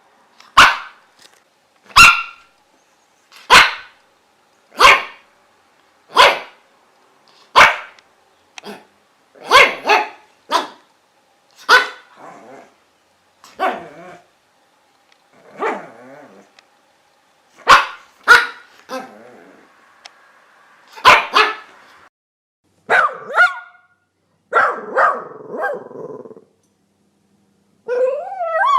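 Dogs barking in a run of sharp, separate barks, at first single and spaced about a second and a half apart, then coming in pairs and quick clusters with rougher, lower barks. Near the end a wavering, sliding whine begins.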